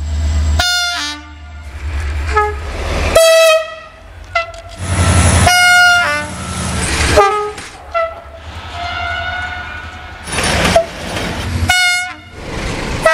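Diesel locomotive horns sounding in many short blasts of different pitches, spliced one after another with abrupt cuts, over the low rumble of passing trains.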